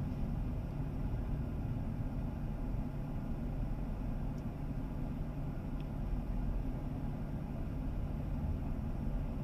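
Steady low rumble of a car heard from inside its cabin.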